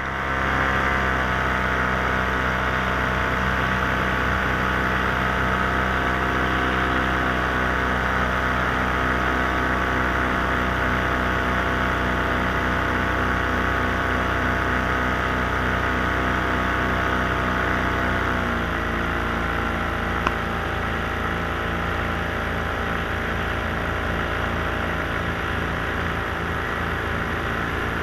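The propeller motor of a small aircraft in flight runs steadily, then throttles back about 18 seconds in, its pitch stepping down and holding lower. A single brief click comes shortly after.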